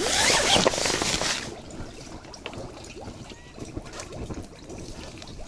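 Gas leaking from a burning gas canister sunk in an ice-fishing hole, bubbling up through the water and burning at the surface: a loud gurgling rush for the first second and a half, then quieter bubbling with small crackles. The leak is at the loose fitting on the canister.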